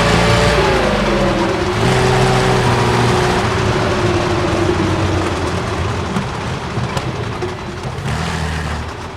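Tiger II tank's Maybach V12 petrol engine running under load. Its pitch rises briefly near the start, then falls over the following seconds, and the sound grows steadily quieter in the second half.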